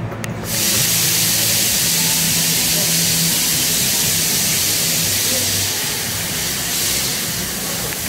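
A loud, steady hiss that starts suddenly about half a second in and eases a little after about six seconds, over a faint low hum.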